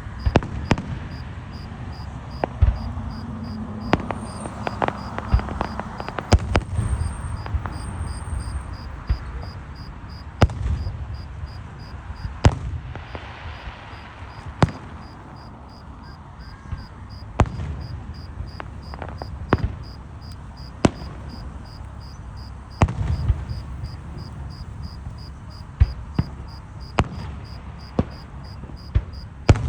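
Fireworks going off: scattered sharp bangs and pops at irregular intervals, with duller low thuds among them. Crickets chirp steadily underneath throughout.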